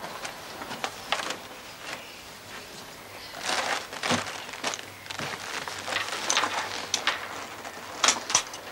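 Handling noises: cloth rustling and a leather briefcase being worked, a string of irregular short clicks and rustles. Two sharp clicks near the end are the loudest.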